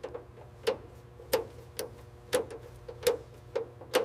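A series of about eight sharp clicks at uneven intervals, each with a brief ring, over a faint steady hum.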